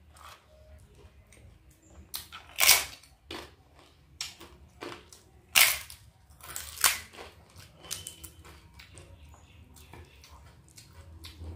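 Crisp fried papad being bitten and crunched close to the microphone: two loud cracks about three seconds apart, then a smaller crunch, with faint chewing clicks between.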